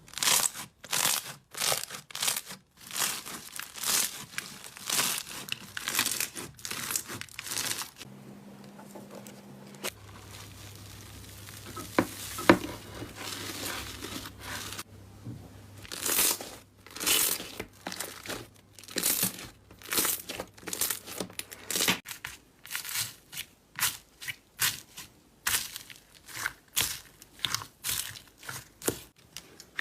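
Slime being squished and pressed by hand, a crinkly, crackling burst with each squeeze, about one or two a second, with a quieter, smoother stretch about a third of the way in.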